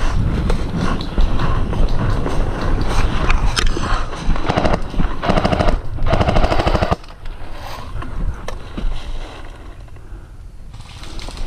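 Three rapid full-auto bursts from an airsoft electric gun, each a fast, even rattle of shots, about four and a half to seven seconds in. Before them comes the jostling noise of a player moving with his gear.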